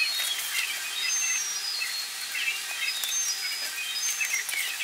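Birds chirping: short high calls that fall in steps, repeated, over a steady hiss.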